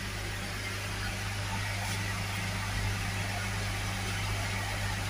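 A steady low machine hum under a hiss, like a motor or fan running.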